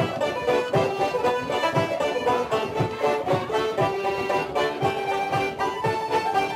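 Traditional Irish session music: a lively tune on melody instruments, with a bodhrán beating out low thumps about twice a second.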